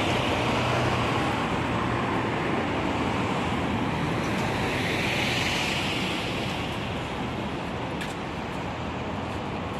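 Steady rushing street noise of traffic and wind, swelling for a moment about five seconds in.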